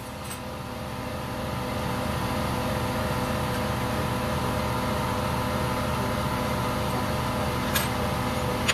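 A steady mechanical hum, like a shop motor running, that builds up over the first couple of seconds and then holds even. Two short metallic clicks come near the end.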